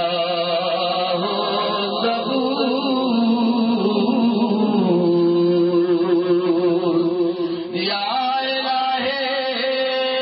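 A man's voice chanting a devotional salam through a microphone and loudspeakers, drawing out long held notes that bend slowly in pitch. About eight seconds in the chant moves to a new, steadier held note.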